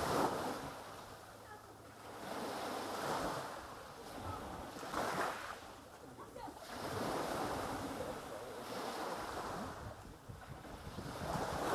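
Sea waves washing onto the shore, the surf swelling and falling back every few seconds.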